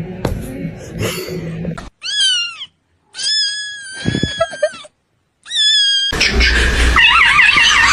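A cat meowing three times: a short call, a longer steady one, then another short one. Near the end a louder, noisy stretch with wavering tones takes over.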